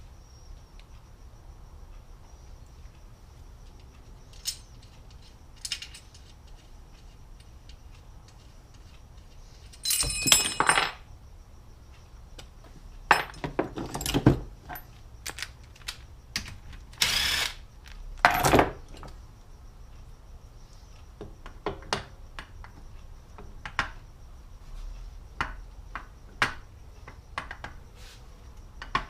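Scattered metallic clinks, taps and short rattles of hand tools, bolts and engine parts being handled while the starter motor is fitted to the Yamaha Raptor 700 engine case, with a few louder clattering bursts around the middle.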